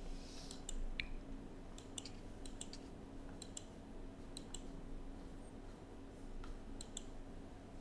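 Faint computer mouse clicks, a dozen or so, many in quick press-and-release pairs, over a faint steady hum.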